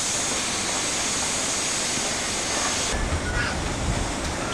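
A BR Standard Class 4 steam locomotive standing at the platform, hissing steam steadily. About three seconds in, the hiss drops away and leaves a low rumble with a few knocks.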